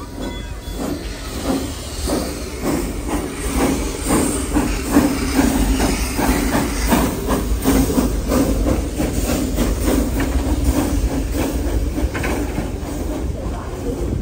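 Steam locomotive passing close at low speed, its exhaust chuffing in a steady rhythm over hissing steam and the running of its wheels.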